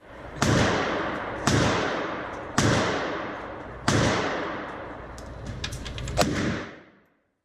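Four gunshots about a second apart, each trailing off in a long, slowly fading echo, followed by a few light clicks near the end.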